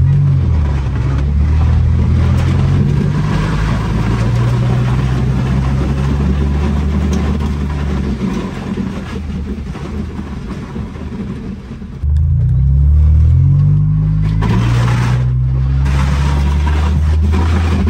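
Honda Accord's engine pulling and accelerating, heard from inside the cabin, its pitch climbing right at the start and again about twelve seconds in, over a rough, steady rushing noise from the heavily lowered car, which is meant to rub and scrape its clearance out.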